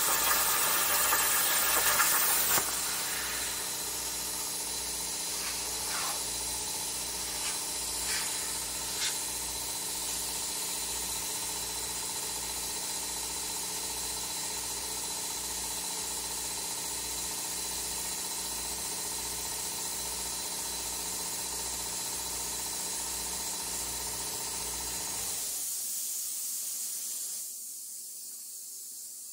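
PrimeWeld Cut60 plasma cutter on a CNC table finishing a cut through quarter-inch steel plate: a loud steady hiss that stops about two and a half seconds in. A quieter steady hiss of air follows, the torch's post-flow cooling air, with a faint low pulse about twice a second and a few light clicks, and it cuts off near the end.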